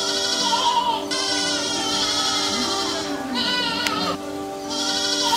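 Background music: steady held low notes under a wavering high melody that comes in short phrases.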